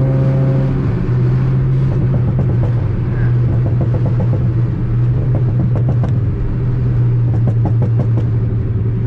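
Honda Brio's engine droning steadily through an Ironcrafts Pro Circuit aftermarket exhaust while driving, with a scatter of short sharp ticks in the second half.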